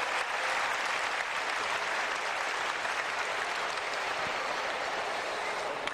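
Crowd applauding steadily, a dense wash of clapping.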